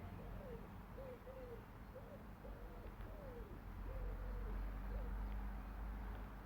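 A bird cooing: a run of short, low, rising-and-falling notes that stop about five seconds in, over a low outdoor rumble.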